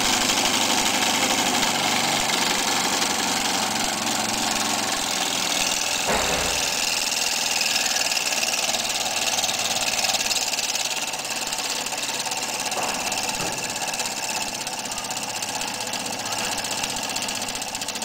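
Small model steam engine running fast, a steady rapid beat with hiss, with one low knock about six seconds in; the sound eases off a little after about eleven seconds.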